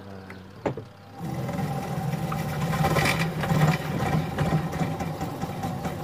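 Washing machine's spin-dryer motor starting up about a second in, just after a click, and running with a steady hum.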